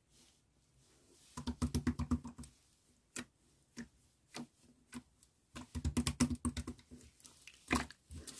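Jelly slime being poked and pressed with the fingertips, giving two runs of quick sticky clicks with single clicks between them and one louder click near the end.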